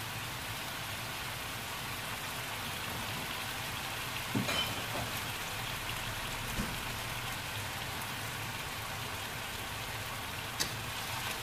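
Tempeh and long beans simmering in sauce in a wok over a gas flame: a steady sizzling hiss with a few faint ticks about four and a half seconds in.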